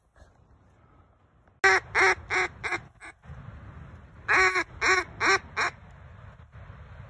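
Duck call blown in two quick runs of loud, quacking notes, four and then five, each note dropping slightly in pitch: a hen-mallard style series to pull passing ducks in.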